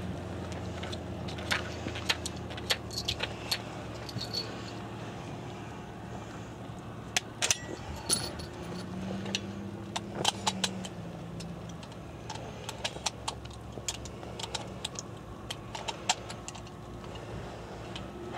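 Light metallic clicks and jingles, scattered irregularly, from gear being handled, over a steady low background hum; a faint droning tone swells and fades about halfway through.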